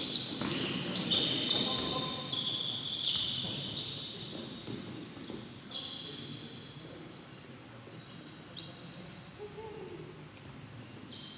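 Players' shoes squeaking on an indoor futsal court in a large sports hall, with the occasional thud of the ball or feet. There are many short high squeaks in the first few seconds, then only a few scattered ones as the play quietens.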